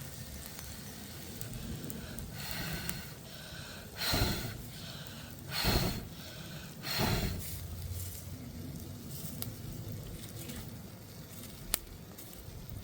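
A wood cooking fire crackling with a steady sizzle. Three louder swishing surges come in the middle, and a single sharp click near the end.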